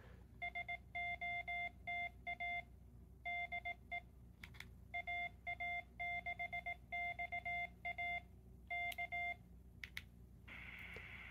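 Morse code sidetone from a Quansheng UV-K5 handheld radio running the uvk5cec firmware, its built-in keyer sending a stored CQ message in CW: one steady beep keyed on and off in dots and dashes. Near the end the beeping stops and a steady hiss comes in.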